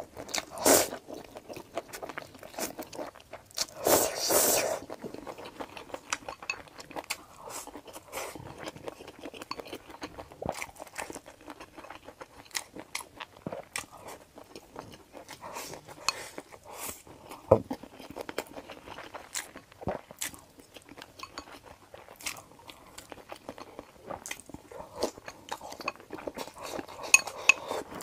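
Close-miked eating sounds: noodles slurped loudly at the start and again about four seconds in, then chewing with many small mouth clicks and smacks. Near the end chopsticks clink against a glass bowl.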